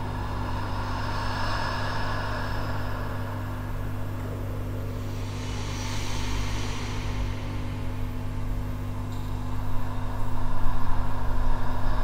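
Dark ambient soundtrack drone: a steady low rumble with held low tones, a rushing swell about halfway through, and growing louder near the end.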